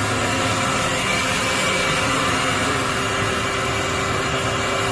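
Steady machine hum with several constant tones from a Doosan HC 500 horizontal machining center that is powered up and running.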